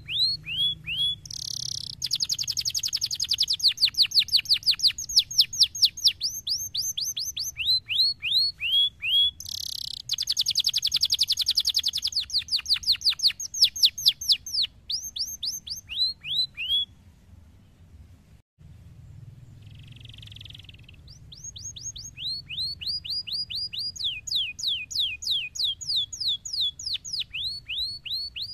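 Canary singing: long rapid trills of repeated downward-sweeping whistled notes, the speed and pitch of the trill changing from phrase to phrase, with a brief pause about two-thirds of the way through.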